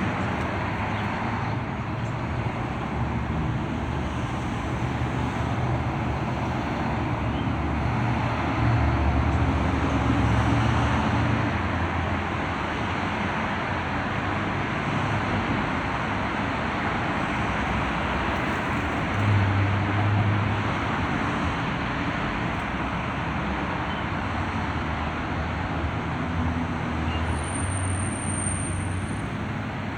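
Road traffic passing on a city street: a steady wash of tyre and engine noise with a low rumble that swells as heavier vehicles go by, most strongly about a third of the way in and again past the middle.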